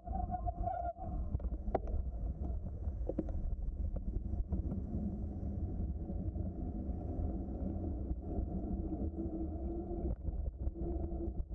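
Bicycle riding along a trail: low, steady wind noise on the microphone with rumble from the tyres and frame, and a few short clicks and rattles.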